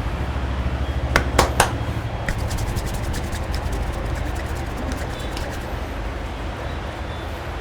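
A barber's hands striking a head in a massage: three sharp claps in quick succession about a second in, then lighter rapid tapping, over a steady low hum.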